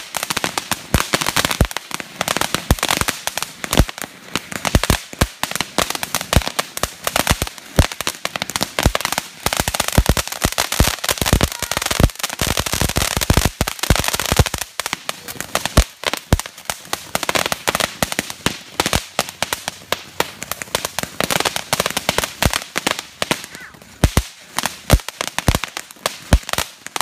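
Ground fountain fireworks spraying sparks: a steady hiss with a dense, irregular stream of sharp crackling pops.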